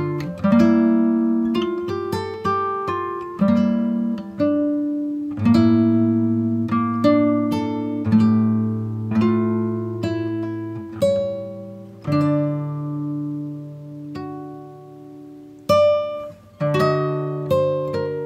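Background music: an acoustic guitar plucking notes and chords that ring and fade, with a softer passage a little after the middle.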